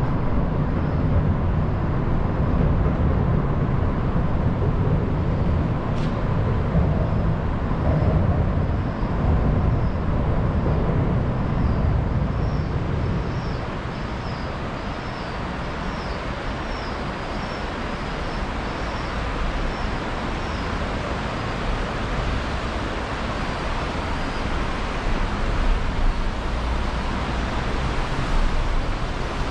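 Steady city road traffic noise, a continuous rumble of passing vehicles. A single click comes about six seconds in, and a run of short, high, repeated chirps sounds through the middle for about ten seconds.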